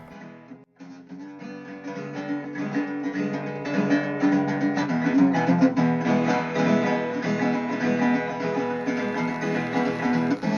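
Background music: acoustic guitar, plucked and strummed, starting after a brief gap and growing louder.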